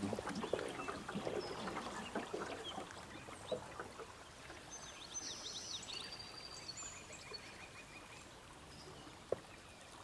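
Quiet scattered clicks and rustles that fade away, a small bird chirping several times around the middle, and one sharp click near the end.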